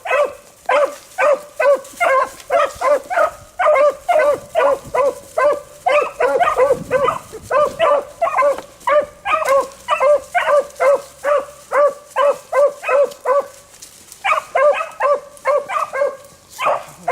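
Beagles baying in a steady run of short, pitched barks, about three a second, as they run a rabbit's track, with a brief lull about fourteen seconds in.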